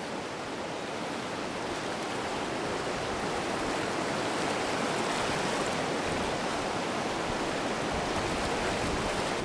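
River water flowing, a steady rushing hiss that swells slightly a couple of seconds in.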